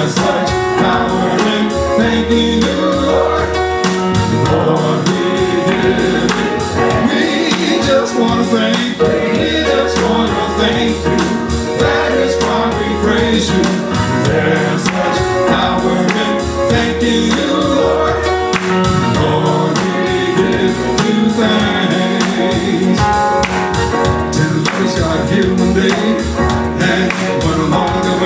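Live gospel praise-and-worship music with a steady beat and singing.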